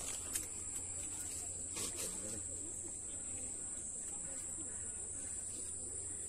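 Steady high-pitched drone of insects such as crickets, one unbroken tone, with a few soft handling clicks in the first two seconds.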